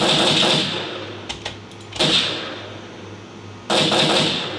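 Gunfire sound effect played back: three loud bursts of fire, about two seconds apart, each starting sharply and fading out over about a second.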